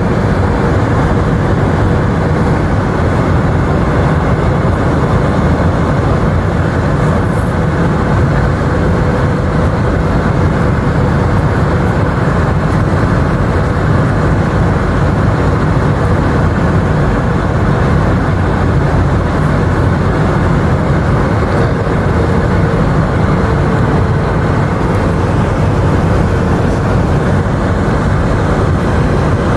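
Steady cabin noise inside an Airbus A319 airliner in flight: the jet engines running and air rushing past the fuselage, with a faint steady whine over the low roar.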